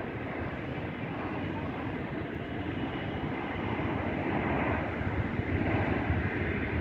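Distant jet airliner engine noise across the airfield, a steady rumble that grows a little louder in the second half.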